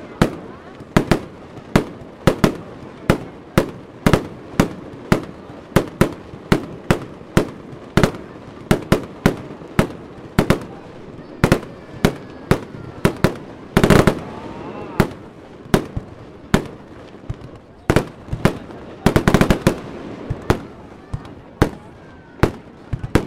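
Fireworks display: aerial shells bursting one after another in a steady run of sharp bangs, about two a second, with denser volleys about 14 seconds in and again around 19 to 20 seconds.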